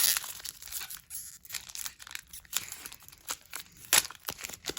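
A trading-card pack wrapper being torn open and crinkled by hand: irregular crackling, with a sharp snap right at the start and another about four seconds in.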